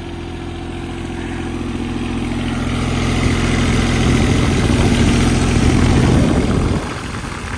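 Yanmar three-cylinder diesel engine of a John Deere 17D mini excavator running at a steady speed, purring and pretty quiet, a sign that it is in good order with no misfire. It grows louder over several seconds, then drops abruptly near the end.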